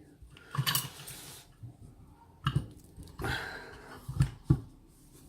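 Kwikset lock cylinder and its key being handled: short scraping noises and a few sharp clicks as the key is inserted and turned to lock the cylinder back up.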